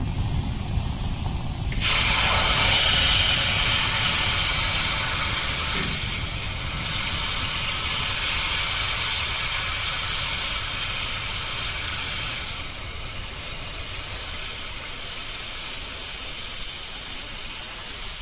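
Firefly Alpha rocket's first-stage engines during ascent: a low rumble, then a steady rushing hiss that starts suddenly about two seconds in and slowly fades.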